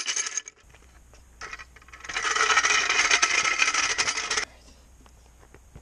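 A clank at the very start, then about two and a half seconds of rattling, scraping noise as a floor jack is pulled across the driveway on its wheels.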